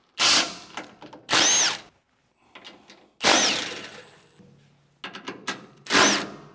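Red Milwaukee Fuel cordless impact driver run in four short bursts, each winding up and back down in pitch, as it removes bolts from the side of a snowblower auger housing.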